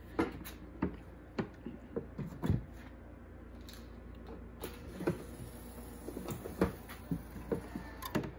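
Scattered clicks and knocks of switches and handling. About halfway through, the CNC control box's cooling fans start with a sudden steady whir as power goes on for the first time. The whir cuts off after a few seconds when the power is switched back off.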